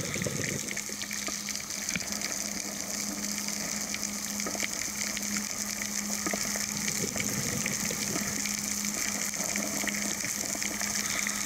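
Underwater crackling of zooplankton, tiny shrimp-like animals with pincers: a dense, steady crackle of fine ticks over a hiss. A steady low hum runs underneath.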